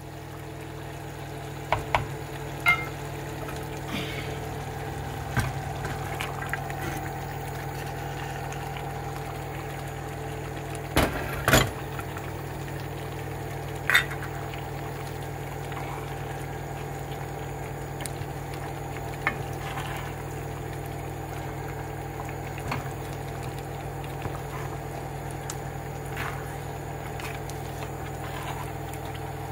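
Beans being stirred into a simmering tomato stew, a spoon knocking sharply against the pot now and then, over the steady hum of a washing machine running.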